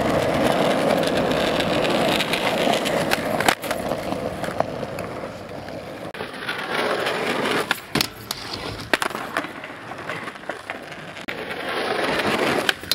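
Skateboard wheels rolling over rough asphalt with a steady gritty rumble, loudest over the first few seconds and again near the end. A handful of sharp clacks of the board cut through, one about three and a half seconds in and several toward the end.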